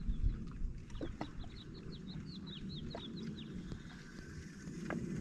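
A bird calling a rapid run of about a dozen short high chirps for a couple of seconds, over a steady low rumble.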